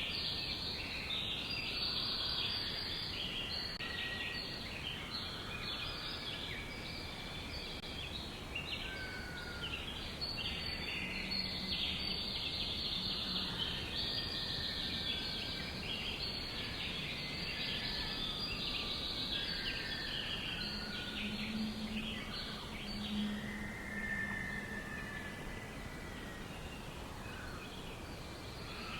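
Many small birds chirping at once in a dense, continuous chorus, with a few longer whistled notes now and then.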